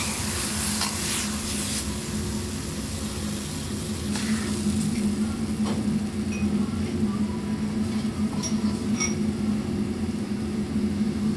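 Metal ladle scraping and stirring through sizzling black bean sauce in a wok, most strongly in the first two seconds, then a few lighter knocks. A steady low hum runs underneath.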